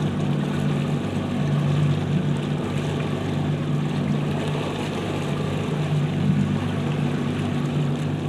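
Motorboat engine running steadily as the boat cruises, with a constant rush of wind and water over it.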